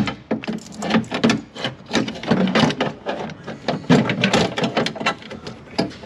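A car window regulator's metal rail and plastic fittings being worked by hand into the inner door frame, giving irregular clicks, knocks and rattles.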